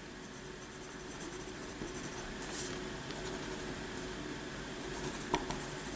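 A pen writing on a sheet of squared paper: a soft, continuous scratching of pen strokes, with a few small clicks about five seconds in.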